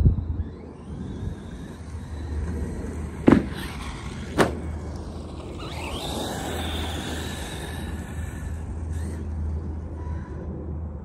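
Arrma Mojave 4S RC truck's brushless electric motor, heard off to the side, whining as it speeds up and slows down. Two sharp knocks come about a second apart a third of the way in, over a steady low rumble.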